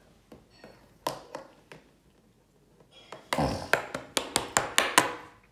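Plastic LEGO pieces and a minifigure being handled against a wooden tabletop: a few light taps, then a thump a little over three seconds in, followed by a quick run of sharp clicks, about five a second.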